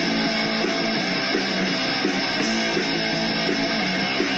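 Grindcore record playing: distorted electric guitar music with a repeating riff, a dense, steady wall of sound.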